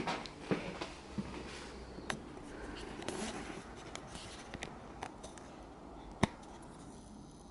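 Handling noise from a hand-held camera: fingers rubbing and tapping on it, with scattered small clicks and one sharp click about six seconds in.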